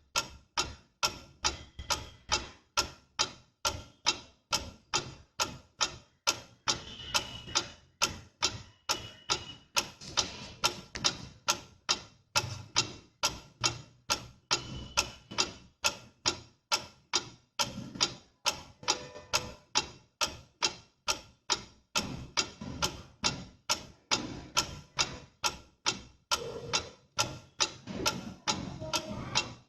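Pendulum clock ticking in an even rhythm, about two ticks a second.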